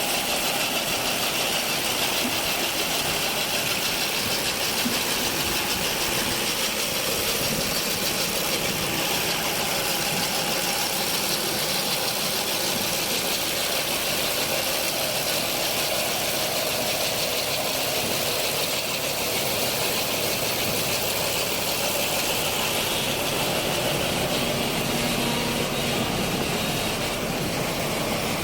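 Lavender harvesting machine running with a steady engine noise.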